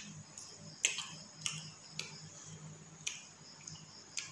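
Close-miked eating sounds: wet mouth smacks and chewing clicks of someone eating rice and curry by hand, a sharp click every half second to a second.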